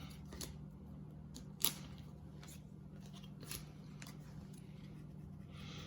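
Faint handling of baseball cards: a few soft clicks and taps, the sharpest about one and a half seconds in, over a steady low hum.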